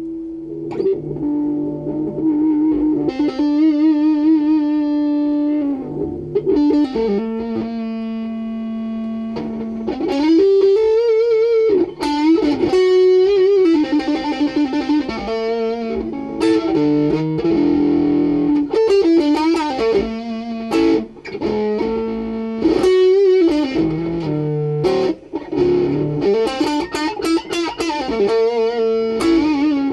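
VinBox wine-box electric guitar with a homemade pickup, played solo in a blues style: single-note licks with bent notes and wavering vibrato, plucked with the fingers.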